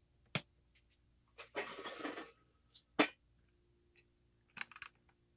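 Handling noise from a camera being moved and propped in a new spot: a sharp knock shortly after the start, a brief rustle, a louder knock about three seconds in, then a few light clicks near the end.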